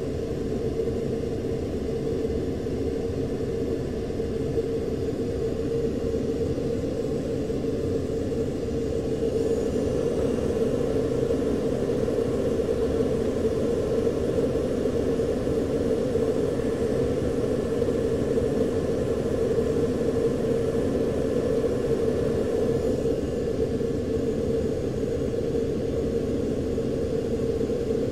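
Steady low drone of a U-2 in flight, heard inside the cockpit: engine and airflow noise with a humming note, a little louder about nine seconds in.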